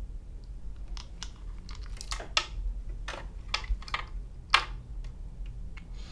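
Small plastic clicks and scrapes of a handheld music player being handled, its buttons pressed and an earphone cable fitted to it, with the sharpest click about four and a half seconds in. A low steady hum runs underneath.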